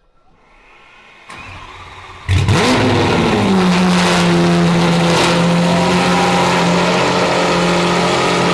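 Lamborghini Aventador SVJ's V12 being started: a short spell of cranking, then about two seconds in the engine catches with a rev flare and settles into a steady idle. This is the first start of the rebuilt car.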